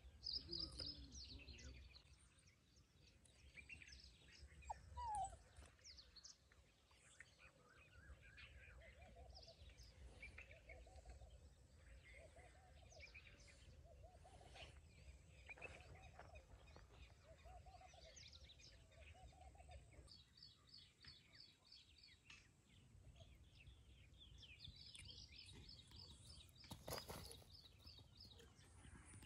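Faint birdsong in open scrub: many small birds chirping and calling, with a lower call repeated about once a second for roughly ten seconds in the middle.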